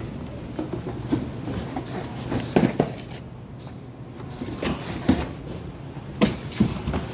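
Cardboard being handled and dropped, a few scattered thuds and knocks over a steady low hum.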